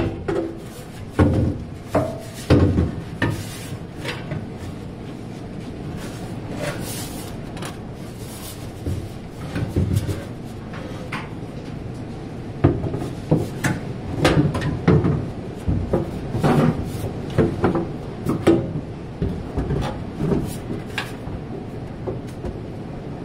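A metal fuel tank being manoeuvred by hand into its bay under a car's body: irregular knocks, clunks and scraping rubs of metal against metal. The knocks come in clusters, thicker in the first few seconds and again through the second half.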